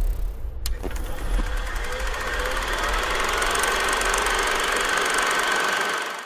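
Logo-intro sound design: a deep low rumble and a sharp hit, then the rapid, even clatter of a film projector running with a steady high tone over it, cut off suddenly at the end.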